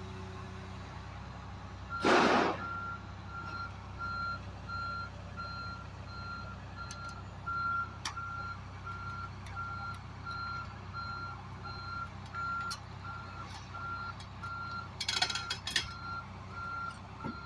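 An electronic beep of one steady pitch repeating about three times every two seconds, starting about two seconds in, over a steady low engine hum. A short, loud burst of hiss comes just as the beeping starts.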